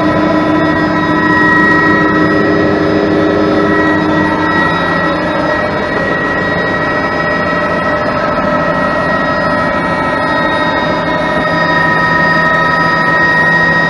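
Turbine tour helicopter in flight, heard from inside the cabin: a steady engine whine with several held tones over the rushing noise of the rotor and airflow.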